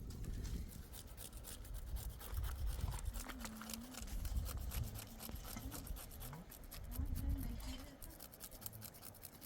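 Dense scratching and rubbing: many quick small clicks and scrapes over a low rumble, with a low voice faintly heard twice.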